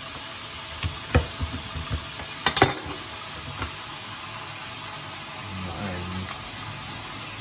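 A few sharp knocks and clicks of knife and hands working on a hen carcass, the loudest about two and a half seconds in, over a steady hiss.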